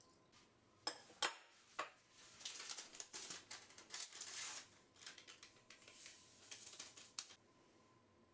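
A small drinking glass knocked down onto a wooden board with a few sharp clinks, then a paper sachet of vanilla sugar rustling as it is opened and emptied into a glass mixing bowl, with light taps and clicks of kitchen things being handled.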